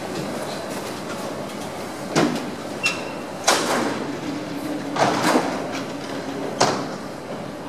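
Doors of a Hannover Stadtbahn TW 6000 light-rail car closing: a series of sharp clunks and knocks as the door leaves shut. A short high beep sounds about three seconds in, and a low steady tone follows for about a second.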